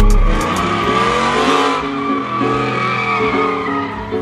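Lowered pickup truck doing a burnout, its rear tyres squealing and skidding on the asphalt while the engine runs hard. The squeal wavers in pitch as the truck swings around.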